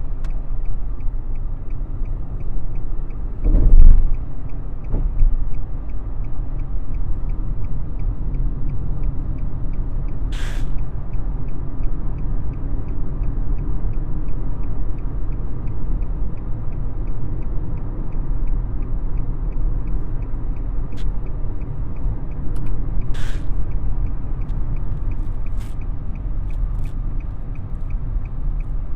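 Steady in-cabin rumble of road and engine noise from a Nissan sedan driving at speed on a highway. There is one loud thump about three and a half seconds in, and a couple of faint clicks later on.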